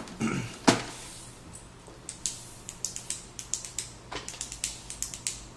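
Handling noise from a printer's plastic casing: a knock a little under a second in, then a run of light, irregular clicks and taps.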